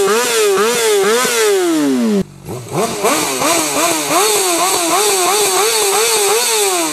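A Honda CBR sportbike engine is revved through a Two Bros Black Series slip-on exhaust with quick, repeated throttle blips. The engine note rises and falls two to three times a second, with a brief break about two seconds in.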